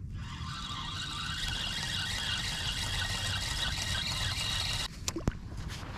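Spinning reel being cranked, a steady gear whir as line is reeled in, stopping abruptly about five seconds in, followed by two sharp clicks.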